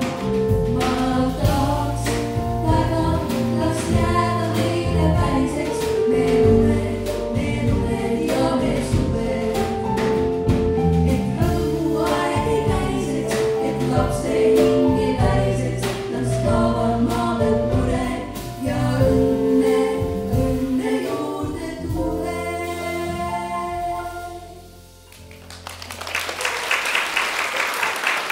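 A group of voices singing a Christmas concert song with accompaniment; near the end the song finishes and the audience applauds.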